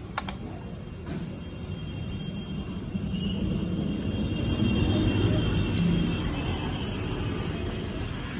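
A few sharp clicks of a screw and laptop parts being handled, over a low rumble that swells around the middle and then eases.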